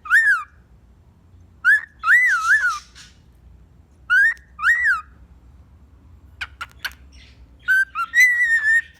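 Pet cockatiel whistling: phrases of clear, rising-and-falling whistled notes, then a few sharp clicky chirps, then a longer, steadier whistle near the end.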